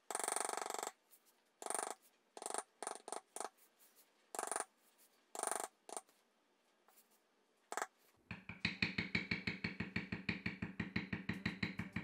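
A maul tapping an extra steep beveler into tooling leather to crisp up the edges of the design. The taps come scattered at first, then from about eight seconds in they run fast and even at about five a second, each with a short ringing tone.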